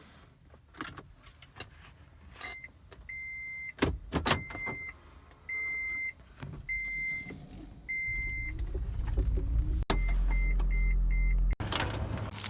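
A car's warning chime beeping repeatedly at one steady pitch, then switching to a quicker run of short beeps near the end. Under it are clunks and handling noises, and a low rumble rises in the second half as the car starts up.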